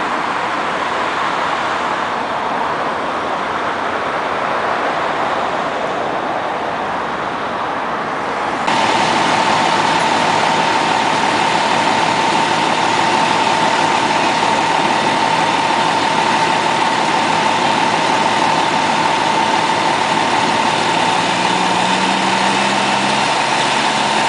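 Fire engine running steadily with a constant high whine. About nine seconds in, an even rushing noise gives way abruptly to this louder sound.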